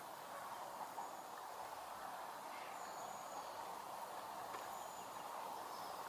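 Steady outdoor ambience by open water: an even background hiss with a few faint, brief high-pitched chirps.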